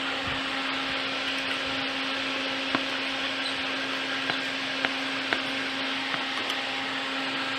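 A steady electric motor or fan hum with one constant low tone, and a few light clicks and taps over it.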